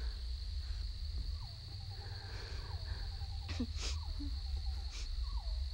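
Night woodland ambience: a steady high-pitched insect chorus over a low rumble, with an animal call repeated four times about every second and a quarter, each a falling note followed by a quick run of short notes. A few sharp rustles or snaps sound about three and a half and five seconds in.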